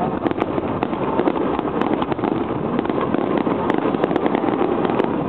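Aerial fireworks shells bursting: dense crackling and popping from many quick reports over a steady noisy background.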